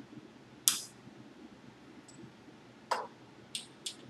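Sharp metallic clicks of a hand wrench on the bolts and nuts that mount a sewing machine head: four in all. The first, the loudest, comes under a second in, and three follow close together near the end.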